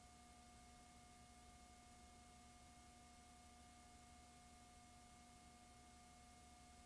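Near silence: a faint steady hiss with a few constant thin hum tones, unchanging throughout.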